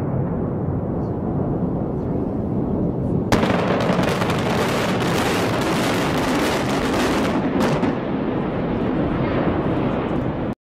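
Controlled demolition implosion of a hotel tower: a continuous rumble, then a sudden louder crash about three seconds in as the building comes down, a sustained rumble of collapsing concrete that eases off near the end.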